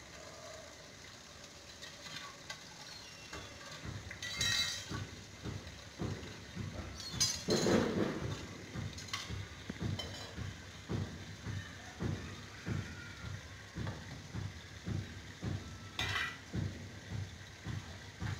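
Household background noise: a regular low knocking about twice a second sets in about six seconds in, with a few louder rustles and clatters, the loudest about eight seconds in.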